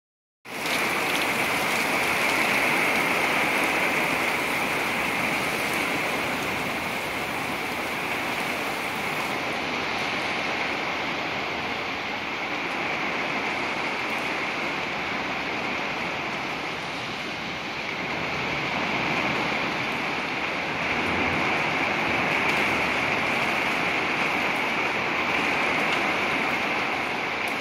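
Steady rain falling, a continuous even hiss.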